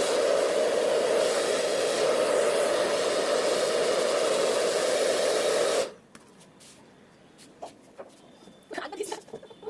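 Chaoba 2888 hand-held hair dryer blowing steadily, switched off about six seconds in. Faint handling clicks and rustles follow.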